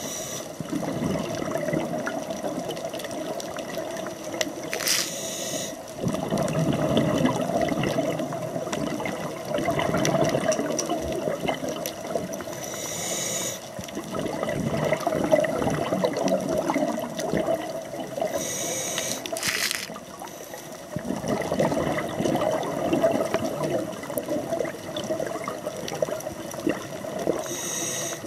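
Scuba regulator breathing underwater: a short hiss of inhalation every seven or eight seconds, each followed by several seconds of bubbling exhalation.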